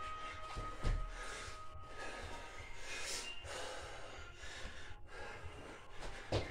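Hard, gasping breaths of a man worn out partway through a set of Navy SEAL burpees. Two dull thumps, about a second in and near the end, as his body and hands drop to the carpeted floor.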